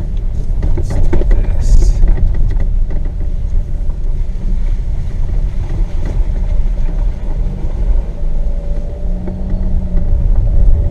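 Car driving slowly over a rough dirt trail: a steady low rumble of engine and tyres, with a few knocks from the bumpy track in the first couple of seconds.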